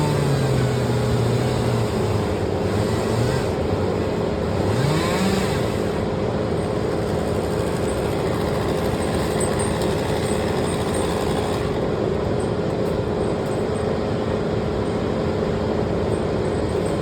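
An engine running steadily, with a short rise in pitch about five seconds in.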